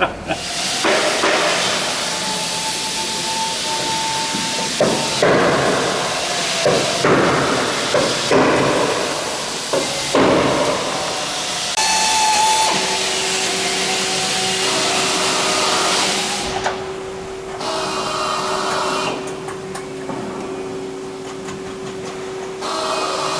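Sheet-metal workshop noise of tools on aircraft metal parts: sharp knocks and taps, with spells of a whirring power tool and a steady hum through the second half.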